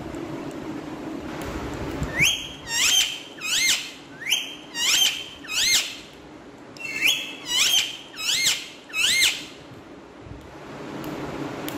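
Indian ringneck parakeet giving a run of about ten sharp, high calls, each rising then falling in pitch: six in quick succession starting about two seconds in, then after a short pause four more.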